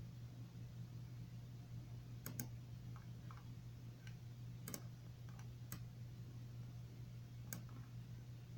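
A handful of sharp clicks, a quick pair about two seconds in and single ones after, over a steady low hum.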